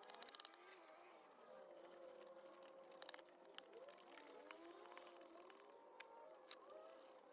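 Near silence: faint background with a few light clicks, including a quick run of ticks just after the start, over faint wavering tones.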